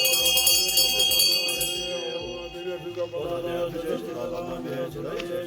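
A mantra chanted over music, with steady sustained tones. A bright, high ringing tone fades out about two seconds in.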